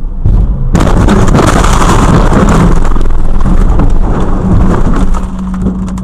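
Car collision heard from inside the dashcam car: a loud crash about a second in, then about four seconds of loud, noisy crunching and rattling. Near the end it settles into a steady low hum.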